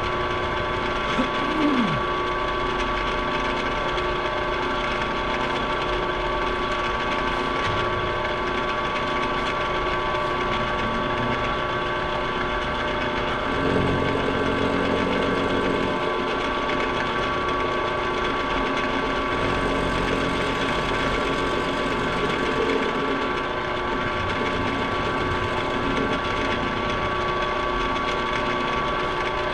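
Milling machine running steadily with a constant high tone, machining the welded ear of a Muncie 4-speed transmission's extension housing. A heavier rumble joins about halfway through.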